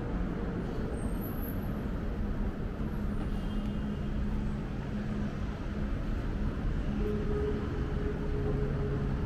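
Steady low rumble of city traffic, with a faint held hum that changes pitch partway through.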